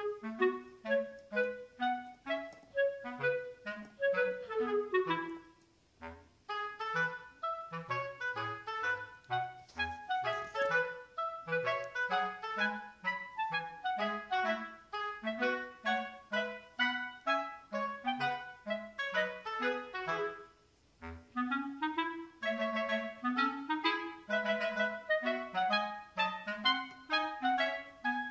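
Background music: a light, bouncy tune of quick short notes, pausing briefly about six seconds in and again around twenty seconds.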